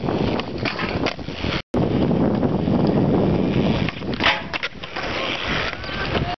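Skateboard wheels rolling on rough concrete, with a sharp clatter of the board hitting the ground about four seconds in as a flip trick over a flat bar is tried. The sound cuts out briefly near the two-second mark.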